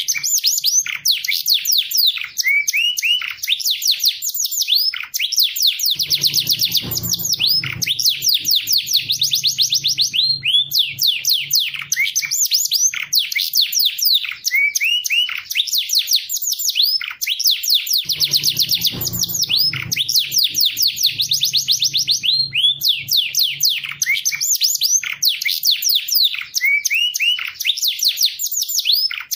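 A domestic canary singing a long song of fast rolling trills and high chirps, with only brief pauses. The same run of phrases repeats about every twelve seconds, as a looped master recording for teaching young canaries.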